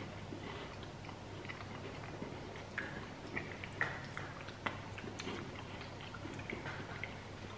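Faint chewing and crunching of thick chocolate-dipped biscuit sticks, with a few small crisp snaps here and there.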